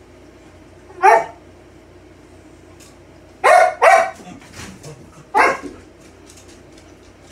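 A dog barking four times: once about a second in, a quick double bark near the middle, and a last bark about two seconds later.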